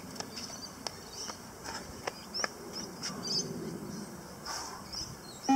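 Quiet background with faint high chirps and a few light knocks, then a short electronic beep of the beep-test recording right at the end, marking the next shuttle.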